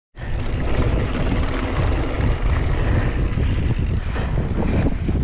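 Wind buffeting an action camera's microphone over a mountain bike rolling down a dirt singletrack: a steady low rumble with the crunch of the tyres and small rattles from the bike. The sound starts abruptly right at the beginning.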